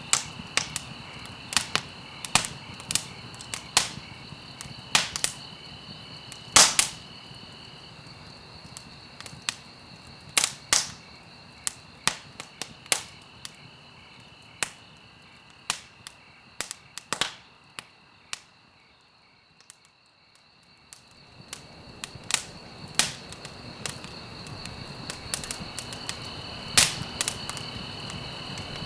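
Wood fire burning in a fireplace, crackling with frequent irregular sharp pops and snaps over a soft hiss, with a faint steady high tone underneath. About two-thirds of the way through, the crackling dies down almost to quiet for a couple of seconds, then builds back up.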